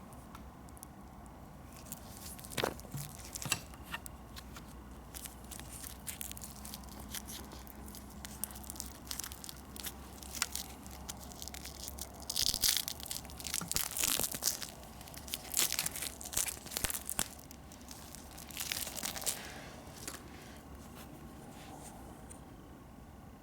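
Packaging being handled and unwrapped: crinkling, rustling and tearing with scattered small clicks, busiest and loudest in a run of rustles a little past halfway.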